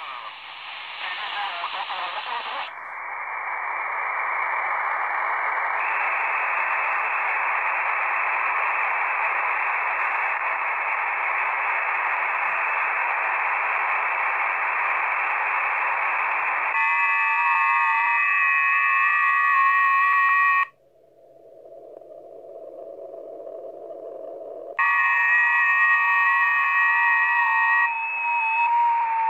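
Shortwave radio hiss from a smartphone SDR receiver in lower-sideband mode on the 40-metre amateur band: a steady rush of band noise, then from just past halfway several steady data tones of digital-mode stations sound together. For a few seconds they give way to a narrower, duller hiss, then the tones return.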